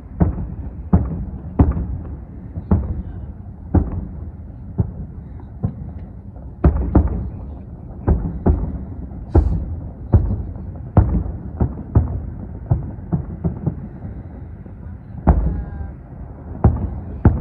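Fireworks going off in a fast, irregular run of bangs, about one or two a second, each a sharp crack with a deep boom that rumbles on briefly.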